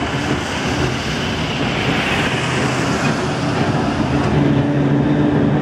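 Perley Thomas streetcar running along its track, heard from aboard: a steady rumble of wheels on rail with a low hum underneath.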